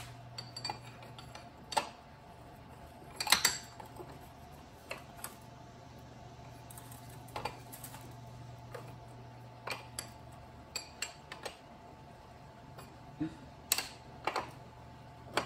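Scattered sharp metallic clicks and clinks of a wrench being fitted and turned on a bicycle pedal spindle at the crank arm, over a low steady hum.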